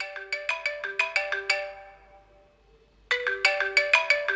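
Mobile phone ringtone: a quick melody of short, bright, plucked-sounding notes, played twice with a pause of about a second and a half between.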